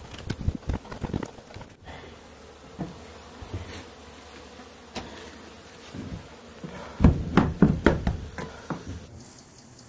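Africanized honeybees buzzing from a disturbed colony opened up inside a wall, with scattered taps and scraping from comb being cut away. A quick run of loud knocks comes about seven seconds in.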